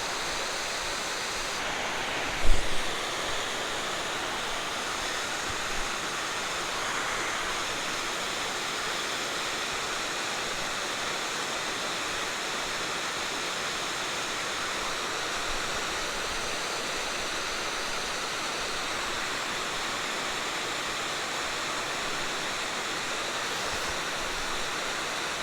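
Steady rush of water pouring over a river spillway. A brief low thump about two and a half seconds in.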